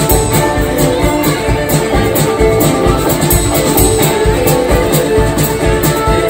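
A live string band playing a honky-tonk tune with an eerie feel. Banjo, acoustic guitar and fiddles play over a steady rhythmic beat.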